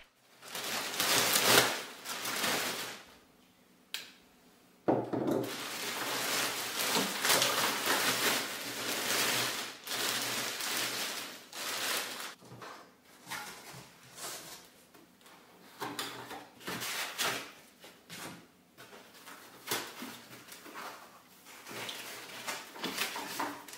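Large clear plastic bag crinkling and rustling in irregular bursts as it is pulled off and bunched up, with cardboard and foam packing pieces handled and lifted out later on.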